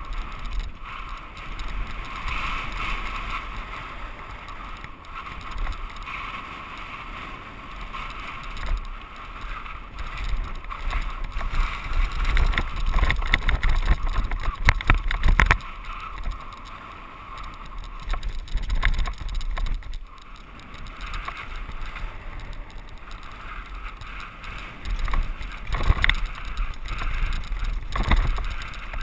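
Mountain bike riding down a dirt singletrack: a steady rush of tyres on packed dirt and gravel, with the bike rattling and knocking over bumps, busier and louder about halfway through and again near the end.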